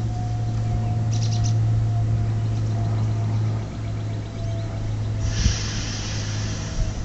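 Low steady rumble of an approaching commuter train, with a faint steady whine above it. A few short bird chirps come about a second in, and a hiss rises from about five seconds in.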